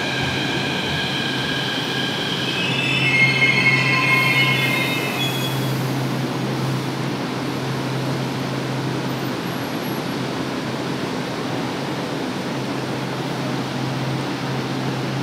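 São Paulo Metro Fleet P train pulling into the station and braking to a stop, its wheels squealing in several high ringing, wavering tones that peak about three to five seconds in and then die away. A steady low hum runs underneath the whole time.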